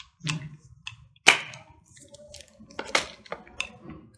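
Handling noise from a hair straightener's power cord being lifted and moved: about four sharp crackles and taps, the loudest about a second in, over soft rubbing.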